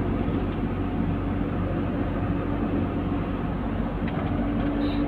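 Steady engine hum and road noise inside the cab of a moving truck, heard through the windscreen-side microphone as an even drone with no change in speed.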